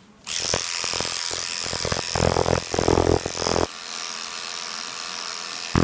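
Electric dog-grooming clipper with a number 10 blade switching on and buzzing steadily as it clips a miniature schnauzer's head and cheek. It grows louder and rougher for about a second and a half in the middle, then settles back to a steady buzz.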